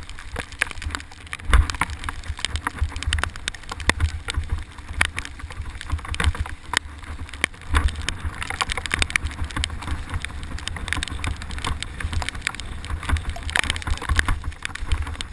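Mountain bike riding down a rough, wet forest trail: wind rumbling on the microphone, tyres on wet dirt, and frequent sharp clatters and knocks from the bike and helmet camera jolting over roots and bumps.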